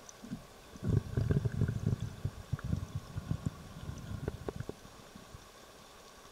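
Muffled underwater gurgling in a river current, with a cluster of low knocks and sharp clicks from about a second in until nearly five seconds, then only a steady faint hiss.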